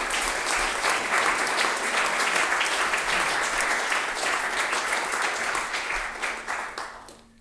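Audience applauding, many people clapping together, dying away near the end.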